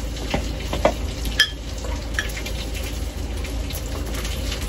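Forks and a spoon clinking and scraping against a plate and a glass bowl as spaghetti is twirled and served. A few short clicks, one of them a ringing clink about a second and a half in, over a steady hiss and low hum.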